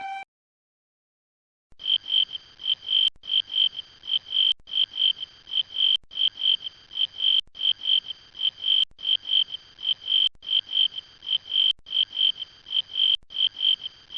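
A chirping animal call: a short high chirp repeated about three times a second, starting after a couple of seconds of silence and broken by brief gaps about every second and a half.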